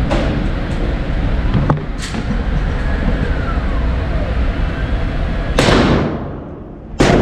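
Gunshots from a short-barrelled AR-15 pistol in 5.56: four sharp cracks, the last two the loudest and about a second and a half apart, each trailing off in a ringing echo, over a steady low rumble.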